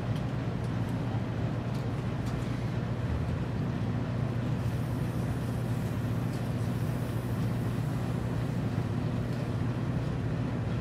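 A steady low machine hum, with a few faint clicks of metal fittings being handled in the first few seconds.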